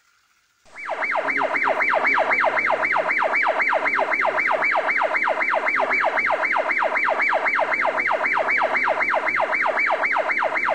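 Police siren in a fast yelp, each wail dropping sharply in pitch, about three to four wails a second; it starts about a second in.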